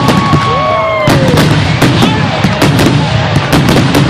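Aerial fireworks going off: a rapid series of sharp bangs over continuous crackling and a low rumble, with drawn-out whistling tones that fall in pitch.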